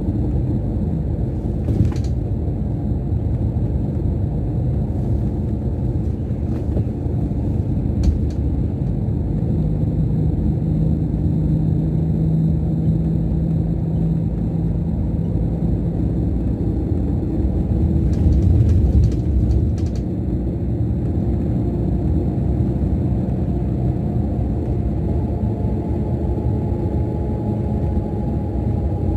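Scania K410 coach's rear-mounted DC13 inline-six diesel running under way, heard from inside the lower deck as a steady low drone. A few light clicks come through it, and a steady hum sits over the engine from about a third of the way in until around halfway.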